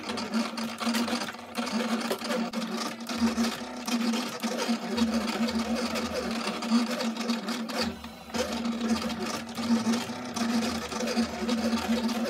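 Silhouette electronic cutting machine cutting a grass shape from green 180 g paper: its motors whir and buzz steadily as the blade carriage and mat shuttle back and forth. There are brief pauses about a second and a half in and about eight seconds in.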